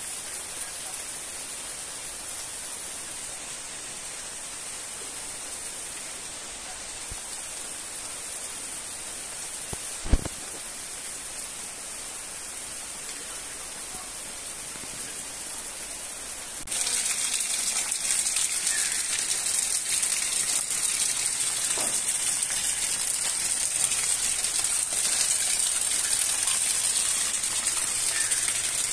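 Heavy rain falling steadily on leaves and grass as an even hiss. There is a single sharp knock about ten seconds in, and the rain suddenly becomes louder and brighter a little past halfway.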